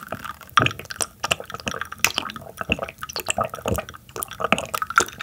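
Close-miked gulping of iced water from a glass mug: a quick, irregular run of wet swallowing clicks, several a second.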